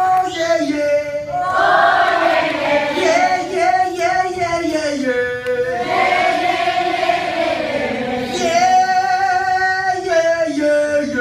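Amplified male rock vocalist singing a held, chant-like melody at the mic, with a crowd of voices singing along.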